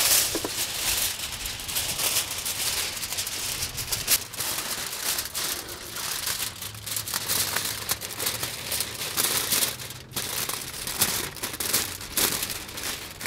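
Heavy-duty aluminium foil being pulled off the roll, laid over a frame and crumpled and crimped down by hand, crinkling and crackling irregularly throughout.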